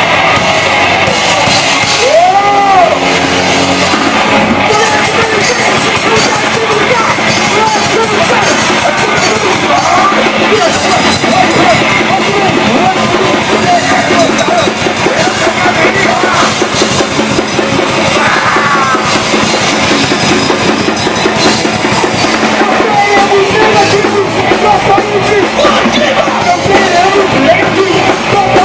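Live punk rock band playing loud and fast: distorted electric guitar, drum kit and shouted vocals.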